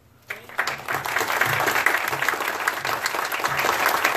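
Audience applauding, breaking out just after the start and going on steadily as a dense patter of many hands clapping.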